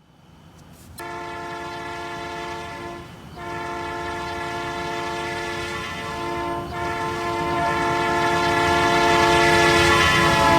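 Locomotive chime air horn blowing long blasts that run almost into one another, with brief breaks, over the low rumble of the train. It grows louder toward the end as the train comes closer.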